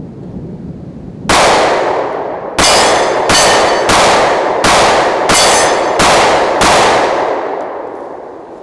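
Sig Sauer P365 pistol firing eight shots: one, then after a pause seven more about two-thirds of a second apart, each followed by a long echo. A thin metallic ring of steel targets being hit sounds after several of the shots.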